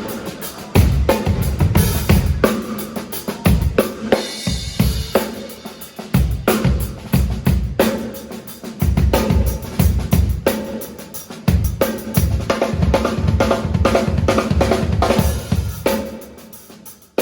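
Drum kit played with a busy beat of kick drum, snare and cymbals, the drums miked through a venue PA during a soundcheck.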